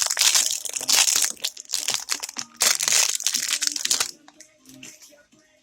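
Plastic packaging crinkling and crackling as a surprise toy is unwrapped by hand, stopping about four seconds in. Soft background music plays underneath.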